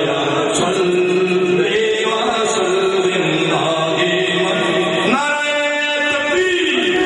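Men's voices chanting a devotional hymn into microphones in long, drawn-out melodic lines. A high note is held for over a second about five seconds in.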